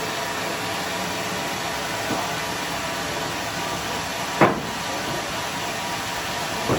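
Home-made sawmill machinery running with a steady noise. A short sharp knock comes about four and a half seconds in, and a smaller one near the end.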